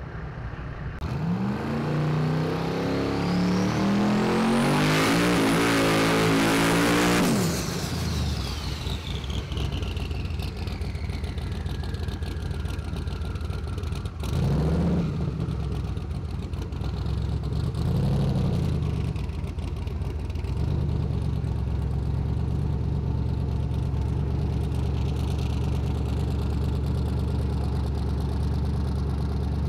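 Drag racing engine at full throttle, its pitch climbing steadily for about six seconds as the car pulls down the track, then falling away. Later a pickup truck's engine is revved in two short blips amid burnout smoke, then runs on steadily at a low rumble.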